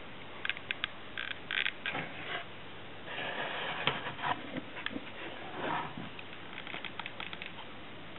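Irregular handling noise from craft materials being worked by hand: rustling and scraping with scattered light clicks and taps.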